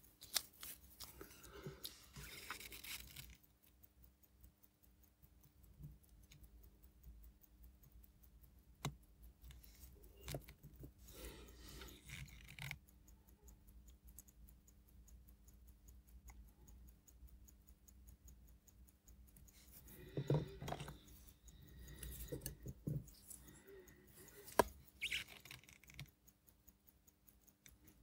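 Faint handling noises of watch hands being fitted: tweezers and a hand-fitting tool clicking and scraping on the watch movement, with a rustle of fingers and gloves and a couple of sharper clicks near the end. A low steady hum runs underneath.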